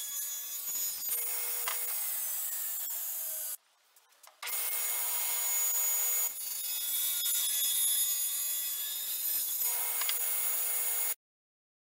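Table saw cutting ash, the piece run upright along a tall fence to cut the tenon cheeks: the blade runs with a steady whine under the hiss of the cut, in several edited passes with a brief break. The sound cuts off suddenly near the end.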